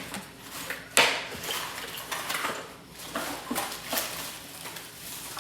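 Small hard objects clattering and clinking as things are rummaged through in a search for a measuring spoon, with a sharp knock about a second in.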